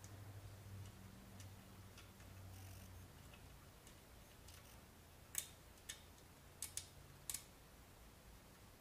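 Near silence with a faint low hum, then a few small sharp clicks about five to seven seconds in, as a screw and its fastener are fiddled into the holes of a skeg guard fitted on an outboard's skeg.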